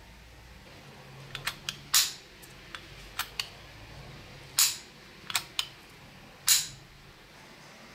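Thumb lever and striker mechanism of a rusty bicycle bell, with the dome off, being pressed by hand: a run of sharp metal clicks, with three louder clacks about two seconds apart and lighter clicks between them.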